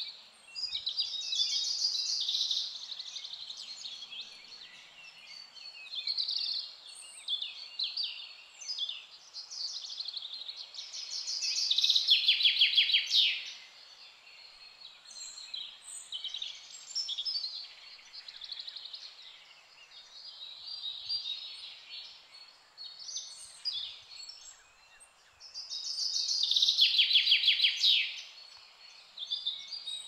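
Several small songbirds chirping and singing in a steady chorus of short high calls. A loud, rapid trill stands out twice, about halfway through and near the end. A faint steady outdoor hiss sits underneath.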